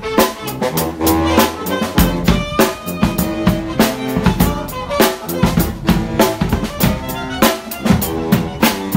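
Street brass band playing: snare and bass drum hits in a steady, dense rhythm under held brass notes, with a sousaphone on the low line.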